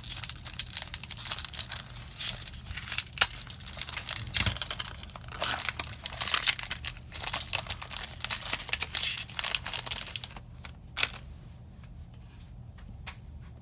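Foil wrapper of a Magic: The Gathering booster pack being torn open and crinkled by hand, a dense run of crackling and tearing for about ten seconds that then dies down to a few faint rustles and clicks.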